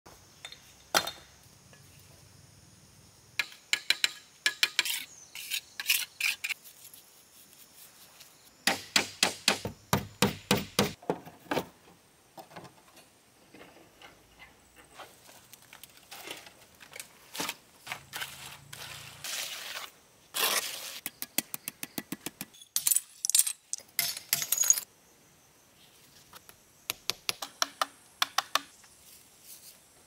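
Quick bursts of sharp clinks and knocks from hard pieces striking one another, from hand building work with bricks, sand and broken tile.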